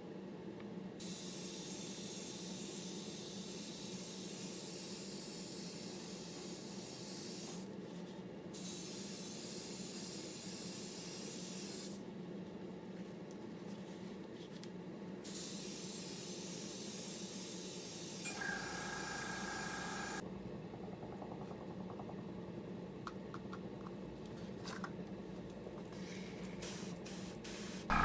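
Paint being sprayed, hissing in three long bursts of several seconds each with short pauses between them.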